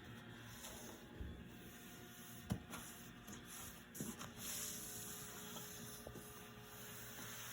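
Quiet workshop background with a sharp click about two and a half seconds in and a few light knocks a little later, over a faint steady hiss.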